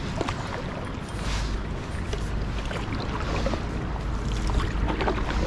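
Canoe paddle working the water, with small scattered splashes and drips, over a steady low wind rumble on the microphone that sets in about a second in.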